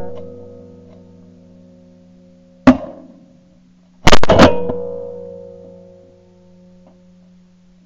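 Shotgun shots, a sharp single crack about 2.7 s in and a louder doubled blast about 4.1 s in that dies away over a couple of seconds, over a quieter backing track of guitar music.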